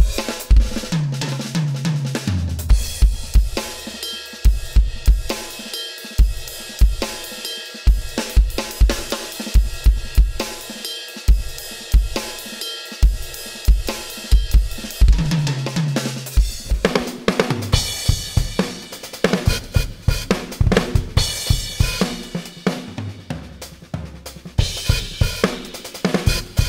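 Rock drum groove played on a Roland TD-30 electronic kit, heard as the module's sampled kick, snare, hi-hat and cymbal sounds, with two fills stepping down the toms. In the last couple of seconds the same kit is triggering EZdrummer 2 software drum sounds instead.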